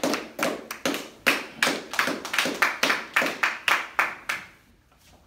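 Audience clapping to welcome a speaker, a quick even run of claps at about four a second that stops about four and a half seconds in.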